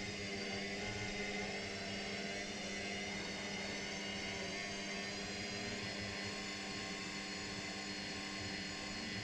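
Electrolux EW6S404W front-loading washing machine running mid-cycle: a steady mechanical hum and whine with several fixed tones over a low rumble.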